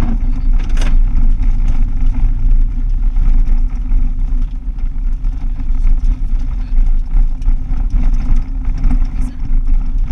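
Car driving on an unsealed dirt road, heard from inside the cabin: a steady low engine and tyre rumble with many small ticks and rattles, and a sharper clatter about a second in.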